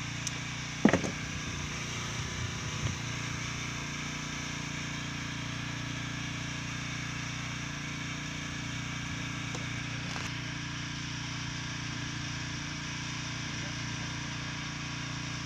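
Steady drone of a fishing boat's engine running. About a second in there is one short, loud sound, a brief shout or knock, and a couple of small knocks follow.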